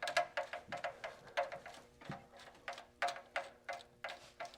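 Ratchet wrench clicking in short back-and-forth strokes, two or three a second.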